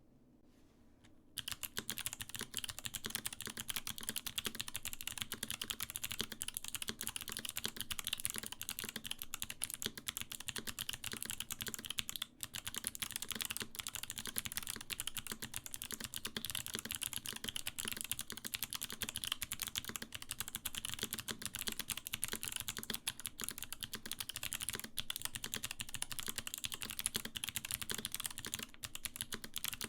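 Fast, continuous typing on a custom J-01 Rev 1 mechanical keyboard fitted with lubed Kailh Box White clicky switches. The keystrokes start about a second in and run densely, with one brief pause near the middle.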